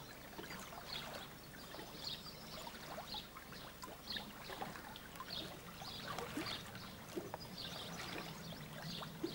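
Soft, quiet splashing and lapping of pool water as a swimmer does a slow breaststroke, in small scattered splashes.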